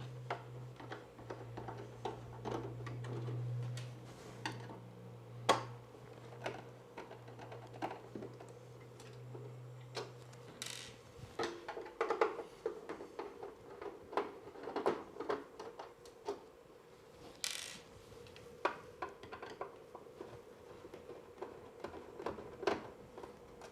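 A Phillips screwdriver backing the lid screws out of a CCTV recorder's metal case: a long run of small irregular clicks, metal taps and a few short scrapes. A low hum runs under the first half and stops about halfway through.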